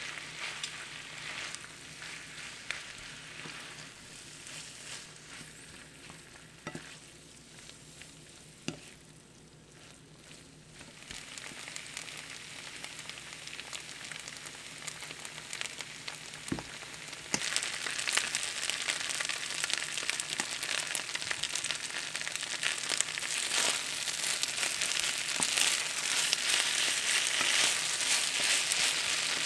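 Pork belly kimchi fried rice sizzling in a frying pan while it is stirred and turned with wooden spoons, with a few light knocks of the spoons. The sizzling grows clearly louder a little past halfway and stays loud.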